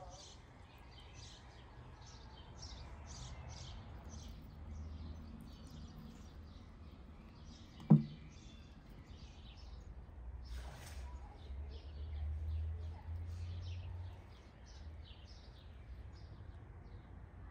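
Small birds chirping continually over a low outdoor rumble, with one sharp, loud knock about eight seconds in.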